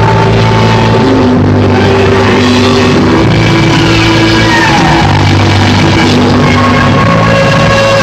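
Loud, distorted rock band music with electric guitars holding long sustained notes. About three seconds in, one guitar makes a falling pitch slide.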